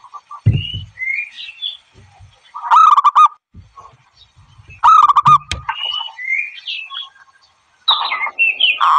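Zebra dove (bato-bato) calling: three loud bursts of rapid staccato cooing notes, a few seconds apart. Higher chirping whistles come between the bursts, and there are a couple of low thumps near the start.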